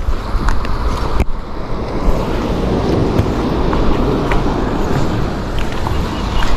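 Wind buffeting the microphone in a steady low rumble, with sea surf washing against the rocky shore beneath it; a single knock about a second in.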